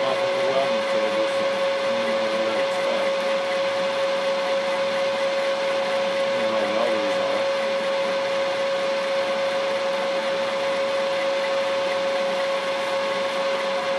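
Vertical milling machine running steadily, its motor and gear head giving a constant whine.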